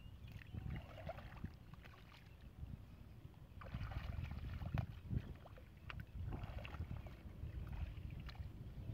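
Shallow muddy water sloshing and splashing as a person wades and digs with a spade, in irregular bouts, with occasional short knocks and scrapes of the spade in the mud.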